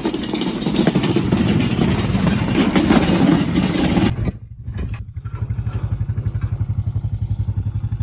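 Red Honda ATV engine running while it tows a small metal cart over gravel, with the cart rattling. About four seconds in the sound drops away, and the engine settles into a steady, evenly pulsing idle as the ATV stops.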